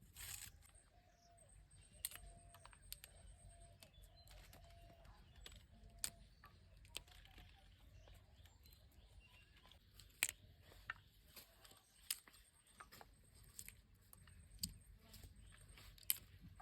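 Quiet, sparse light clicks and taps, a sharp one every second or so, over a faint low hum.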